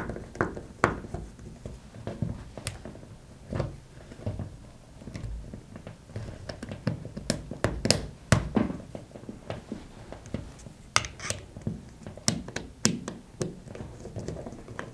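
Screwdriver and fingers working the terminals of a plastic wall socket front: scattered small clicks, taps and scrapes as the terminal screws are loosened and the copper wires pulled free.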